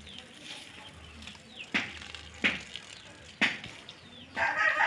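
Water from a garden hose spraying and spattering onto concrete and dry grass, a steady hiss with three sharp clicks in the middle. A voice is heard briefly near the end.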